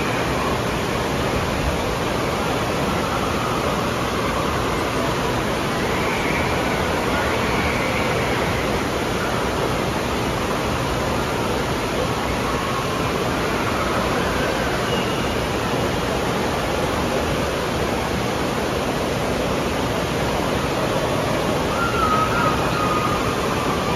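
Steady rush of water pouring out of a tube water slide's exit and churning across its splash-down pool.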